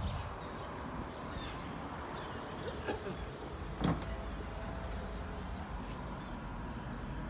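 Dennis Dart SLF single-deck bus's diesel engine idling steadily, with a sharp knock about four seconds in.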